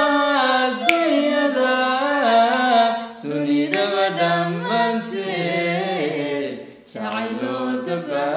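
A man and a woman singing a Somali song together without accompaniment, holding long melodic notes.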